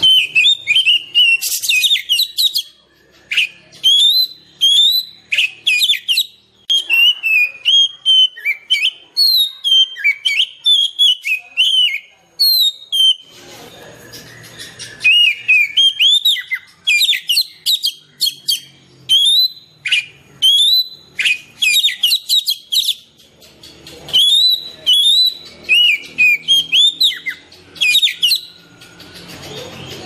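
Oriental magpie-robin (kacer) singing a long, varied song of clear whistled phrases, many with rising slurs, broken by a few short pauses.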